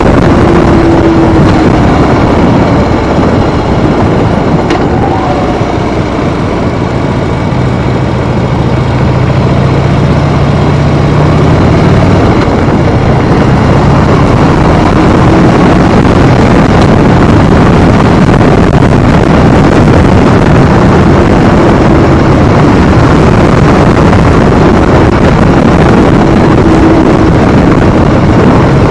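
Harley-Davidson V-twin motorcycle being ridden, its engine running under a heavy rush of wind on the microphone. The engine note climbs in pitch for a few seconds near the middle.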